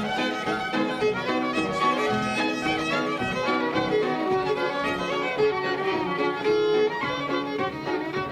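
Irish traditional fiddle music: fiddles playing a fast reel.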